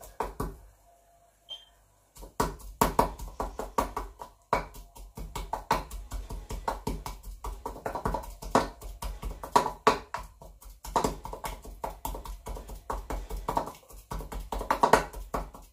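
Wooden pestle pounding fried garlic cloves in a wooden mortar: rapid, steady knocks, several a second, starting about two seconds in.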